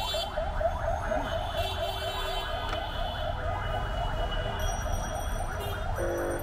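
Electronic siren or alarm yelping rapidly, about five short rising sweeps a second, stopping just before the end, over a low hum of street traffic.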